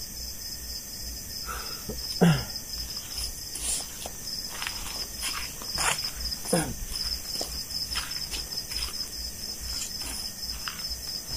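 Crickets chirping in a steady, high, pulsing trill, with footsteps rustling on dry leaves and scattered small clicks. Two short downward-sliding sounds stand out, about two seconds and six and a half seconds in, the first being the loudest.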